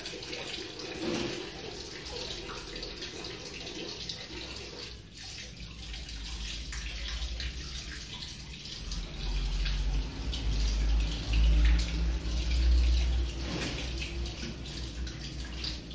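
Water running from a wall tap into a plastic bucket, a steady splashing hiss. A low rumble for a few seconds past the middle is the loudest sound.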